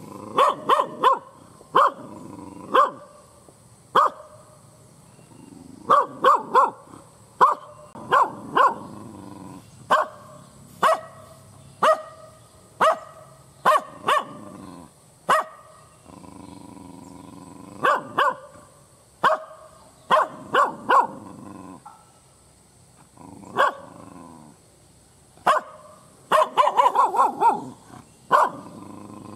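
An Indonesian village dog (anjing kampung) barking loudly and angrily. Its sharp barks come in short runs of two to four with pauses between, and there is a fast flurry of barks near the end.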